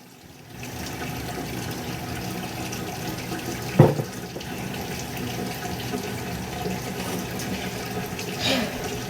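Tap water running steadily into a sink, with a short knock about four seconds in.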